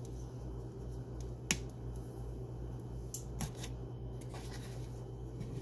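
A few short, sharp clicks and smacks as hands handle a slice of white bread over a plate of crunchy peanut butter: one about a second and a half in, then three close together around three to three and a half seconds in, over a steady low hum.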